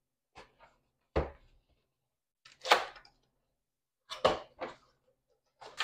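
Lights and their packaging being handled during unboxing: a string of separate short knocks and thumps, about six in all. The loudest is a brighter, scrapier knock a little under three seconds in.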